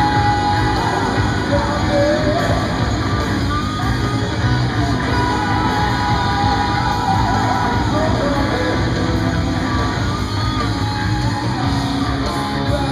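Live rock band playing at full volume in a large hall: distorted electric guitar, bass guitar and drums, with the lead singer's shouted vocals over them.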